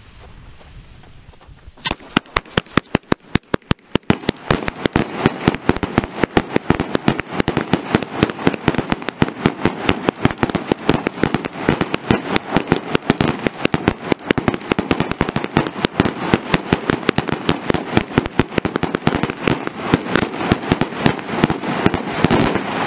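A 100-shot 'Aftershock' firework cake: the fuse hisses faintly for about two seconds, then the cake fires in rapid succession, several shots a second, with the shots and their breaks overhead running together into a continuous rattle of sharp bangs for about twenty seconds before dying away at the end.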